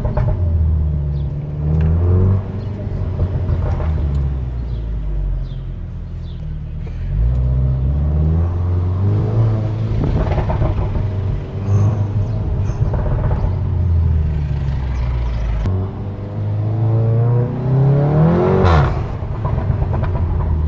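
SEAT León Cupra engine running and revving, its pitch stepping up and down, with a sharp rev climbing to a peak near the end and then dropping.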